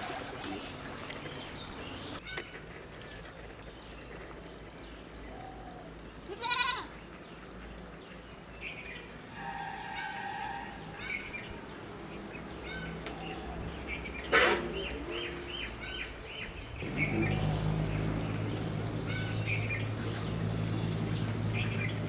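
Outdoor farmyard ambience: scattered animal calls, including one held call about ten seconds in, and short bird chirps. From about seventeen seconds in, a steady low hum sets in under them.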